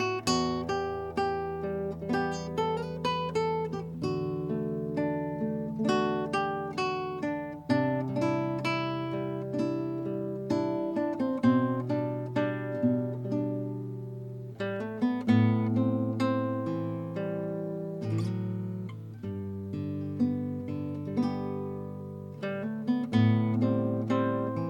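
Kodaira AST-100S classical guitar fingerpicked, a melody of plucked notes over ringing bass notes, with some strummed chords.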